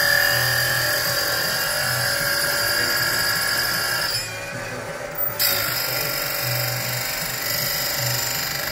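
Electric saw-chain grinder with an Oregon grinding head, its abrasive wheel grinding the chain's cutter teeth with a steady high whine and hiss. It stops for about a second roughly four seconds in, then starts again.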